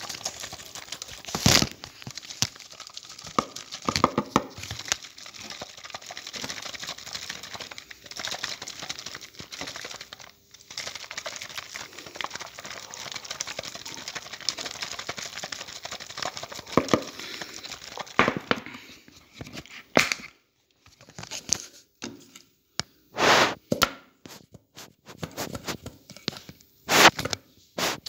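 Milk squirting from a model cow's teat into a stainless steel pail: a hissing, splashing stream with irregular crackles and knocks. After about twenty seconds it breaks into separate louder bursts with short gaps between them.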